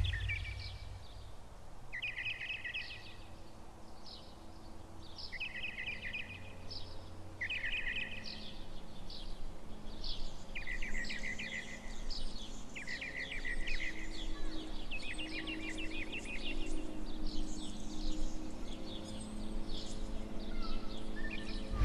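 A small songbird singing, repeating short high phrases every second or two over a low, steady background hum.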